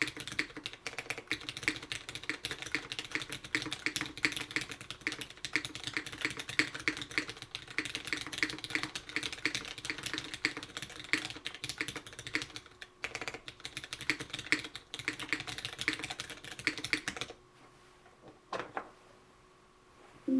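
Merisi 65% mechanical keyboard with Cherry MX Brown switches on a carbon fiber plate and doubleshot keycaps, typed on quickly: a dense run of keystroke clacks that stops about three seconds before the end, then one lone keypress.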